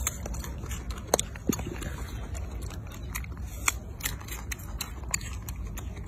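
Rhesus macaque biting and chewing fruit: a handful of sharp, separate crunches over a low steady rumble.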